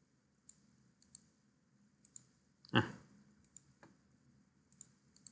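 Computer mouse clicking: scattered single and paired clicks, several of them press-and-release pairs, as values are copied and pasted into a program. One short breath about three seconds in is louder than the clicks.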